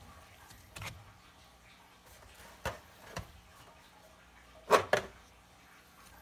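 A few scattered light knocks and clicks from handling things on a wooden cutting board, the loudest a quick double knock near the end.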